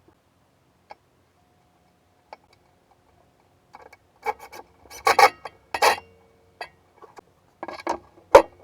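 Hand work on workshop parts: a few faint clicks, then a run of short scraping, rubbing strokes a few seconds in, and a sharp knock near the end.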